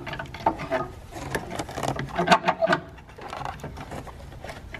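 Irregular plastic clicks, knocks and rattles of a Ford Fusion ECU wiring-harness connector being pushed and worked onto the engine control unit, busiest and loudest about halfway through.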